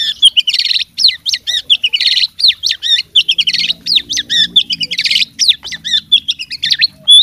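Oriental magpie-robin (kacer) singing without pause: a fast, varied stream of whistled notes, glides and trills, broken by several short harsh rasping notes. The song is packed with learned, mimicked phrases.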